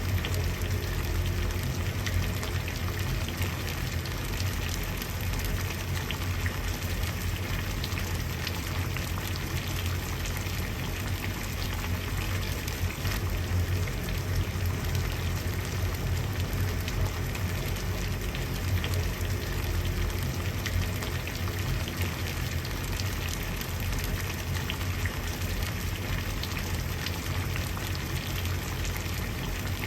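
Water boiling at a steady rolling boil: a constant bubbling hiss made of many small pops, over a low rumble.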